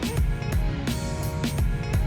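Background music with a steady drum-kit beat: regular kick-drum thumps and hits about three times a second, over sustained instrumental chords.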